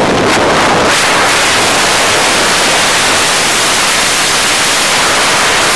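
Loud, steady wind rush over the microphone from a car moving at highway speed: an even hiss with no distinct tones.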